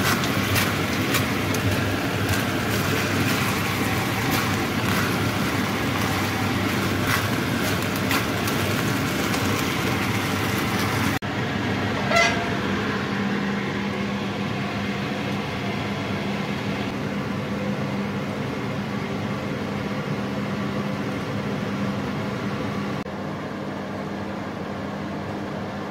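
Mapo tofu sauce sizzling and bubbling in a wok, with scattered crackles over a steady hum. The crackling stops about 11 seconds in, leaving the hum, and a short metallic clink follows about a second later.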